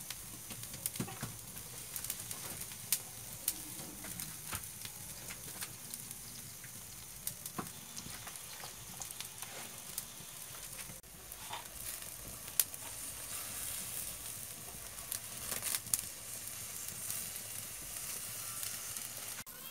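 Mussels in their half-shells, topped with scallion oil, sizzling on a wire grill over a wood fire: a steady hiss with scattered sharp pops and crackles.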